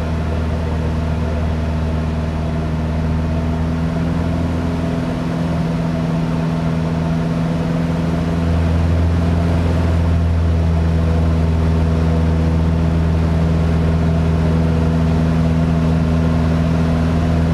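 Piston engine and propeller of a small single-engine aerobatic aircraft running steadily, heard from inside the cockpit with wind noise; the engine note gets louder about eight seconds in.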